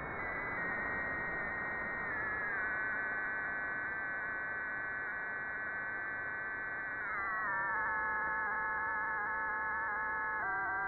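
Audio from a software-defined radio in double-sideband mode, demodulating a recorded thermoacoustic brain signal: a buzzy tone with several overtones over a hiss. It steps down in pitch three times, about 2 s in, about 7 s in and near the end, as the tuning frequency is raised.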